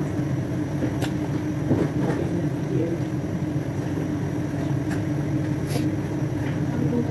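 Steady low hum and rumble of a background machine, with a few light clicks and taps as raw chicken pieces are handled against a plastic colander and tub.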